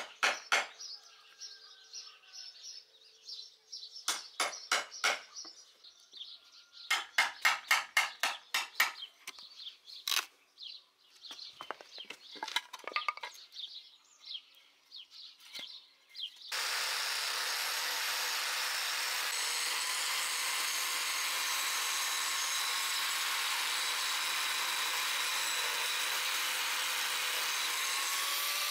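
A steel chisel driven by a hammer into a wooden board, cutting out a curved notch: sharp taps in several groups, with one fast run of strikes. About two-thirds of the way in, an angle grinder starts suddenly and runs steadily against the board.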